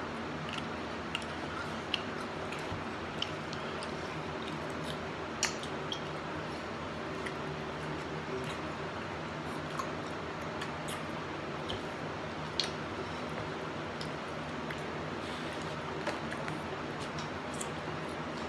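Hot wings being eaten by hand: scattered small wet clicks and smacks of chewing, lip smacking and finger licking, a few sharper ones standing out, over a steady low hum.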